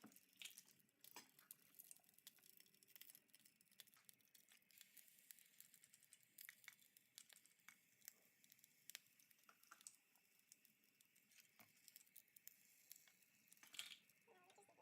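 Near silence with faint, scattered crackles and ticks: pancake batter frying in an oiled pan.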